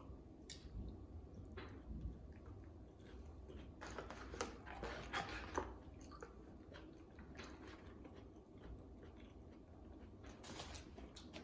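A person chewing food close to the microphone: soft, irregular mouth sounds and small clicks, a little louder about four to five seconds in.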